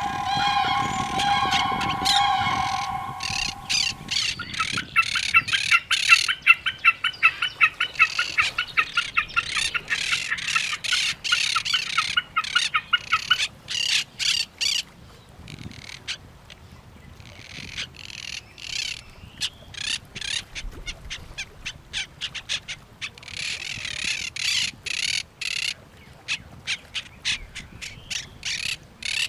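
Birds squawking and calling, parrots among them. A long held call in the first few seconds gives way to rapid repeated chattering squawks for about ten seconds, then irregular bursts of squawks.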